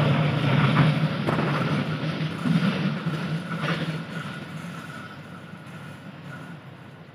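Diesel-hauled passenger train (CC 206 locomotive with Argo Parahyangan coaches) rolling away on the track: its rumble fades steadily as it recedes, with a few wheel clacks in the first few seconds.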